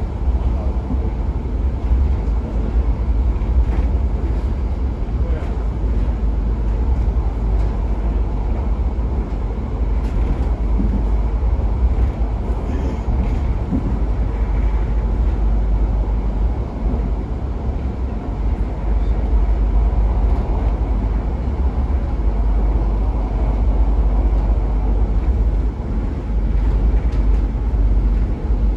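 Steady rumble of a Pesa EN97 electric multiple unit heard from inside the carriage as it runs along the track, wheels on the rails giving a deep, even running noise.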